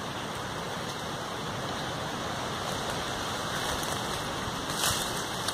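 Steady rushing noise of wind in the trees and on the microphone, with a short rustle of leaves and branches about five seconds in.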